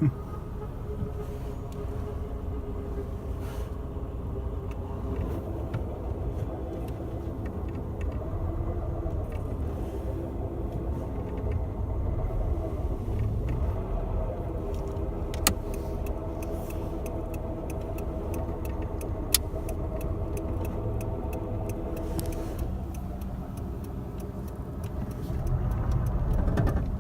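Daewoo Lanos driving slowly in stop-and-go traffic, with a steady hum over the engine's running from a worn clutch release bearing; the owner suspects the clutch disc is worn out too. Two sharp clicks come about halfway through.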